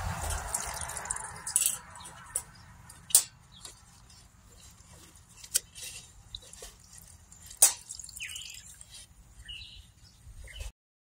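Gloved hand working a sponge in a cut-open plastic jug of liquid weed killer: scattered drips, squishes and a few sharp plastic clicks. Passing-traffic noise fades away at the start.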